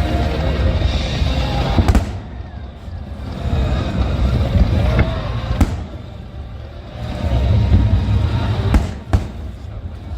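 Fireworks display: aerial shells bursting in four sharp bangs, the last two in quick succession near the end, over a steady low rumble.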